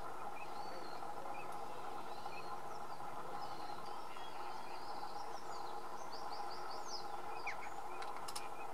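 Small wild birds calling here and there, short chirps and whistles with a quick run of about five notes a little after six seconds in, over a steady background hiss and hum. A few faint clicks come near the end.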